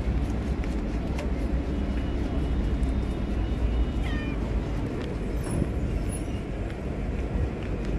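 A stray cat gives a short meow about four seconds in, over a steady low background rumble.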